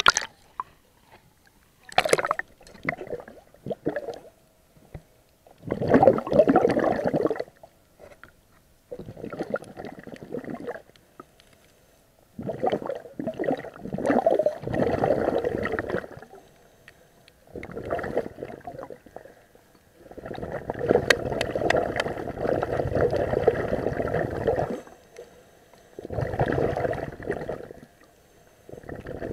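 Scuba regulator exhaust bubbles heard underwater: bursts of bubbling one after another, each lasting one to four seconds, with short quiet gaps between breaths. A splash right at the start as the camera goes under the surface.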